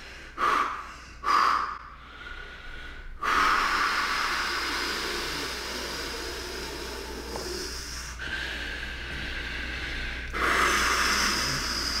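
A man breathing hard through pain under deep hand pressure on his chest: two short, sharp breaths, then long drawn-out noisy breaths that swell again near the end.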